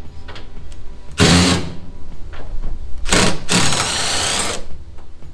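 Cordless power driver running in three short bursts, the last about a second long, as it undoes the bolts holding the front fender on.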